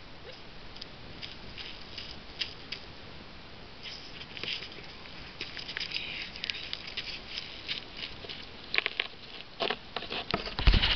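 A dog's paws and a person's boots crunching and scraping on icy, crusted snow, heard as scattered small clicks that come thicker around the middle. Near the end the steps grow louder, with a few heavier thumps.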